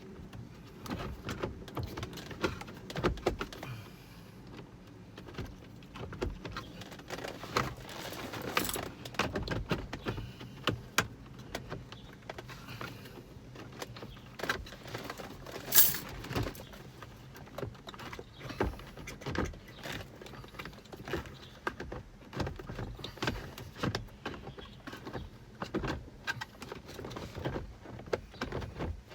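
Hands-on work refitting a car's cabin blower motor under the dashboard: irregular clicks, knocks and light metallic rattles of tools, screws and plastic parts, with one sharp click about halfway through.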